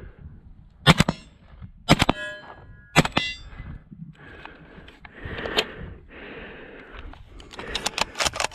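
Three sharp shots about a second apart, each followed by the ringing of a struck steel target. After a stretch of rustling noise comes a quick run of sharp cracks near the end.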